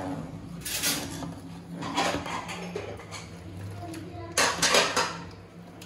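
Kitchen utensils and dishes clattering in a few short bursts, the loudest a little past four seconds in, over a low steady hum.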